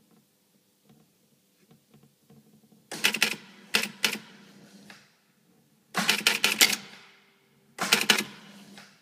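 Electromechanical pinball machine's relays and stepping mechanisms clattering in three bursts of rapid clacks, each about a second long, about three seconds in, in the middle and near the end, over a faint steady hum.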